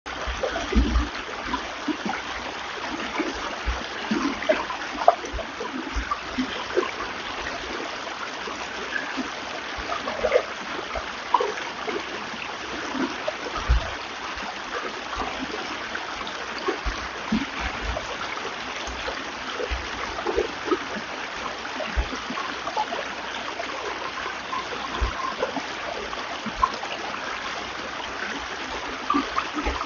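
Mountain valley stream flowing: a steady rush of water with frequent small gurgles and splashes, and occasional short low thuds.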